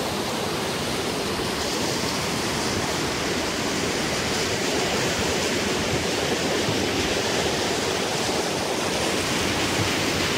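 Waterfall rushing steadily down a rocky burn, a continuous wash of falling water.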